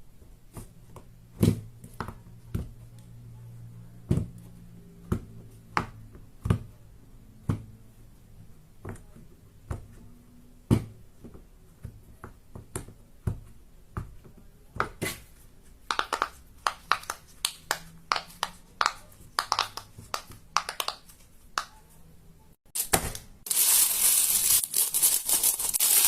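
Fidget toys handled close up: sharp clicks and snaps about once a second, becoming quicker clusters of crackling strokes. Near the end comes a few seconds of loud, dense crinkling and crushing.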